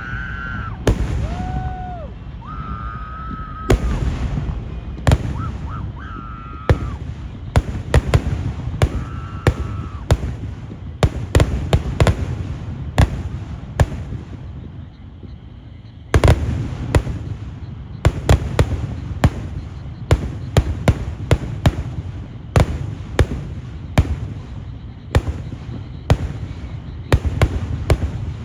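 Kerala-style daytime fireworks (vedikettu) going off: a rapid, irregular string of loud bangs over a continuous low rumble, with a few shrill wavering whistles in the first several seconds. The bangs thin out briefly a little past halfway, then start again densely.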